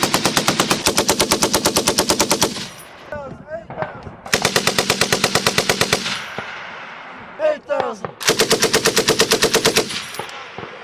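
Belt-fed machine gun firing three long bursts at about ten rounds a second. The first burst stops about two and a half seconds in, the second comes near the middle and the third near the end.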